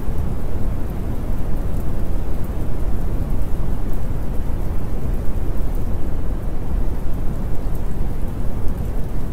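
Steady, dense rumbling noise, heaviest in the low end, with faint crackles scattered high up and no clear tones or beat.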